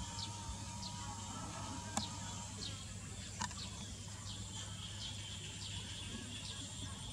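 Insects drone steadily at a high pitch while a bird repeats short falling chirps, roughly once a second. There are a couple of faint clicks.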